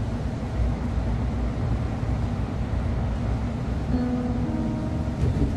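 City bus in motion: steady engine and road rumble heard from inside the cabin, with a brief whine about four seconds in.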